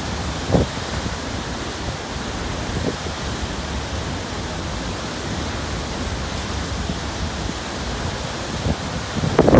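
Steady rush of wind and churning wake water behind a ferry's stern, with brief louder gusts buffeting the microphone just after the start and again near the end.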